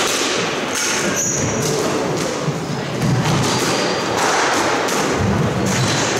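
Squash ball being struck and rebounding off the walls in a rally: a string of sharp thuds a second or so apart, with short high squeaks from shoes on the wooden court floor, echoing in the court.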